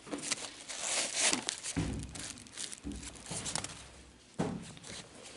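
Crinkling and rustling as a sneaker is handled close to the microphone. In the middle come stretches of low rumbling handling noise, and a sudden rustle about four seconds in.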